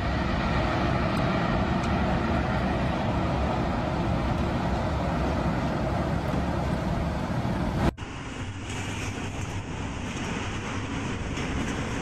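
Tornado wind: a loud, steady rushing noise with no distinct tones. It breaks off sharply about eight seconds in and resumes a little quieter.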